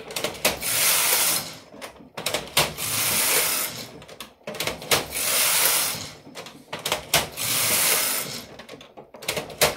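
Carriage of a Jones KH-588 knitting machine pushed back and forth across the metal needle bed, knitting tuck-stitch rows: four long rasping swishes, each a pass of the carriage, with clicks as it stops and turns at each end.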